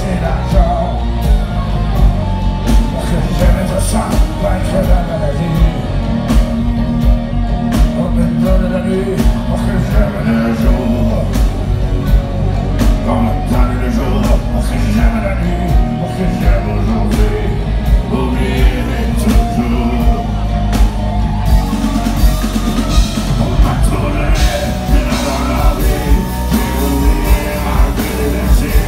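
Live rock band performing with a male lead singer: sung vocal over a steady drum beat, electric guitar and bass, heard loud through the venue's sound system.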